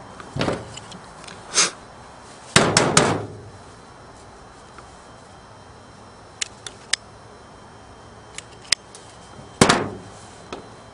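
Sharp clicks and knocks from hand tools and wire being handled during electrical wiring work: a cluster of snaps about two and a half seconds in, a few light ticks later, and a louder knock near the end as a tool is set down on the work surface.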